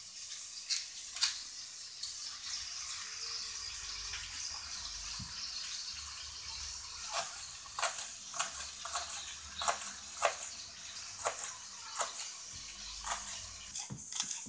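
Kitchen knife chopping green onions on a wooden cutting board: a few light taps at first, then a run of sharp, uneven knocks from about halfway through, over a steady hiss.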